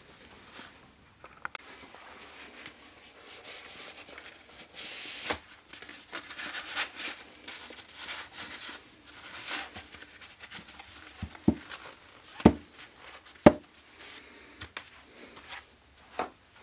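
Stiff waxed canvas pouch rustling and crinkling as it is handled and worked over a bottle, with two sharp knocks about twelve and thirteen seconds in.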